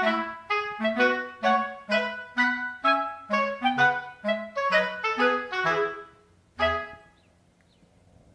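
Background music: a melody of separate notes, two to three a second, that ends with a final note about seven seconds in, followed by near silence.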